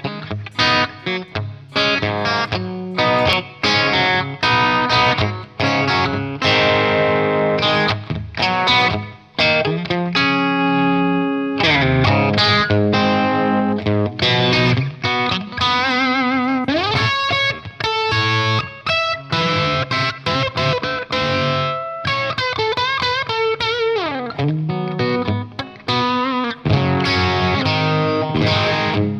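Overdriven electric guitar, a Telecaster on its bridge pickup played through an Origin Revival Drive pedal: strummed chords and single-note lines, with bent notes and vibrato about halfway through and again later.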